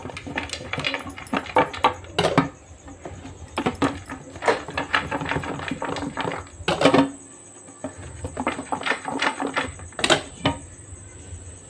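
A lidded metal pot of pulao swirled and shaken by hand to mix it, the lid and pot clicking and rattling in quick irregular runs with short pauses between.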